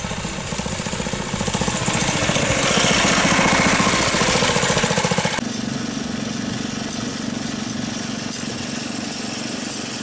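Small engine of a motorized rail rider running as the machine comes up and passes close by, loudest about three to five seconds in. It cuts off suddenly about five seconds in to a steadier, quieter engine sound heard from on board the moving rail rider.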